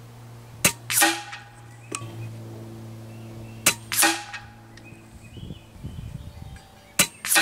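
Kalibrgun Cricket 2 Tactical .22 PCP bullpup air rifle fired three times, about three seconds apart. Each shot is a sharp crack, followed about a third of a second later by a second, longer report, which fits the pellet striking the target 75 yards away.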